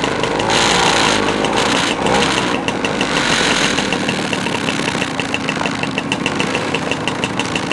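Several two-stroke scooter engines idling, with revs rising and falling in the first couple of seconds.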